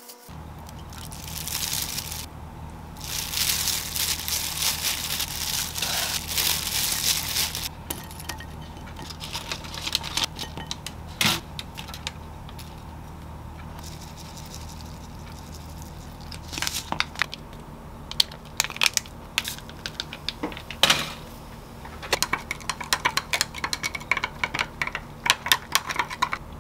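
Hands in thin plastic gloves mixing soy-milk noodles and cabbage in a glass bowl: crinkling of the gloves and wet squishing for several seconds. A few single knocks of dishes follow, and near the end a straw stirring ice in a glass mug, a quick run of clinks.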